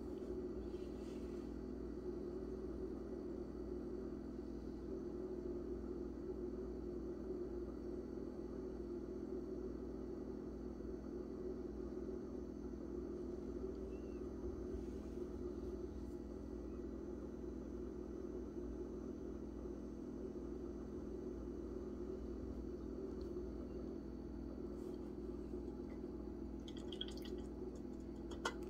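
Steady low hum of room noise, unchanging throughout, with a few faint clicks near the end.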